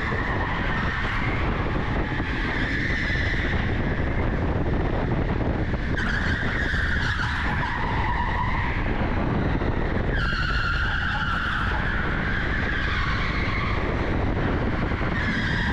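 Electric go-kart heard from onboard while lapping: tyres squealing through the corners over a steady rush of driving noise, the squeal swelling and easing with each bend, starting fresh about six and ten seconds in.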